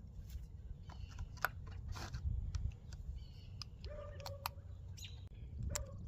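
Faint scattered clicks and handling noise over a low rumble, with a short whining tone about four seconds in and again near the end.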